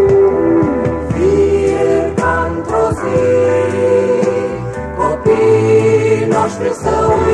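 Funk-rock band music with choir-like voices holding sustained notes over bass and drums, some notes sliding in pitch.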